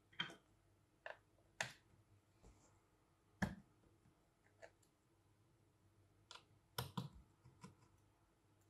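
Scattered light clicks and taps, about a dozen, from small tools and parts being handled on a phone-repair bench, with a sharper knock about three and a half seconds in and a quick run of clicks near the end.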